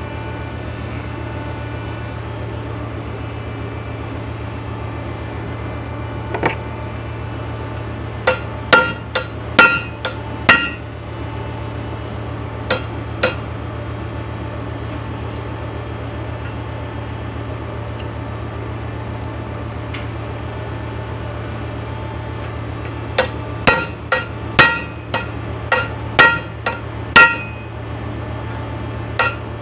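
Hand hammer striking metal in scattered runs of quick, ringing blows with long pauses between, as work goes on renewing a mooring winch's brake lining. A steady low hum runs underneath.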